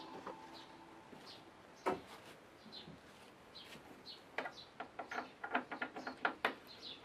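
Light clicks and taps of hands handling and seating the massage machine's plastic cover, coming quickly in the second half. Faint high chirps run throughout.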